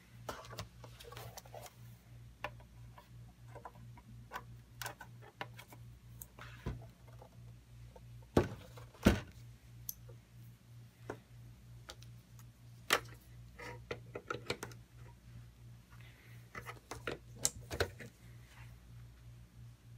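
A power cord being handled and plugged in: scattered clicks and knocks as the plug goes into the back of the network switch and the cord is plugged into a plug-in watt meter. The two loudest knocks come about eight and nine seconds in, over a low steady hum.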